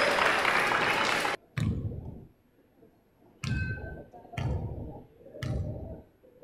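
Loud gym crowd noise cuts off abruptly about a second and a half in, followed by a single thump. Then a basketball is bounced three times on the hardwood floor about a second apart, each bounce a thud with a short ringing ping, as a player dribbles at the free-throw line.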